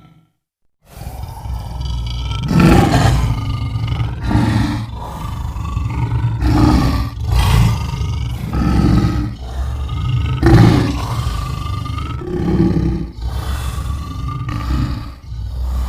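Lion roaring: a long series of deep roars and grunts, one every second or two, starting after a brief silence about a second in.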